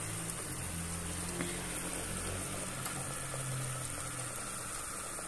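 Steady low kitchen hum with a hiss over it, and one small click about one and a half seconds in.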